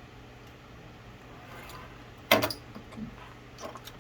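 Handling noise while stripping the other end of a Cat5e cable: one sharp click about two seconds in, then a few softer clicks near the end.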